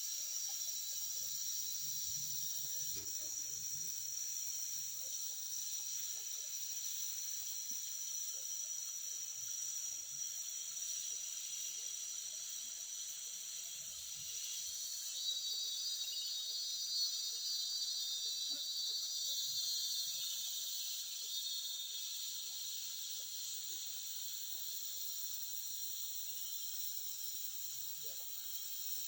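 Tropical rainforest ambience: a steady high-pitched chorus of insects. About halfway through, a second, rapidly pulsing insect call joins for around six seconds, then fades.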